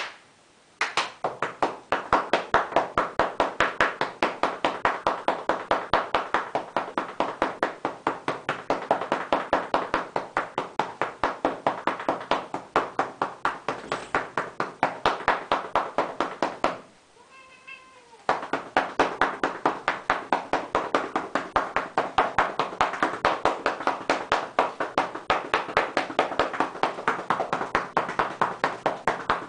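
Paddles patting a cat's rump in a fast, even rhythm of about five slaps a second, with the cat meowing along. The patting stops for a second or so about halfway through, leaving one meow on its own, then starts again.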